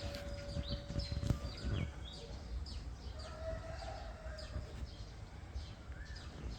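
Outdoor village bird calls: small birds chirping over and over in short, high, falling notes, with chickens calling in the background.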